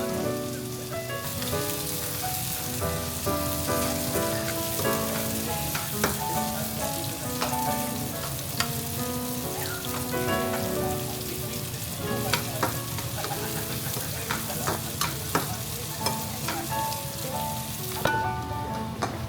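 Food sizzling in a frying pan, a steady crackling hiss that starts about a second in and stops about a second before the end, over soft background music.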